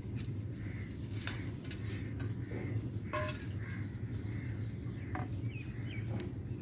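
Wooden spatula stirring milky vermicelli in an aluminium pot, knocking against the pot with a few sharp clicks, over a steady low rumble. Birds chirp faintly in the background, more often near the end.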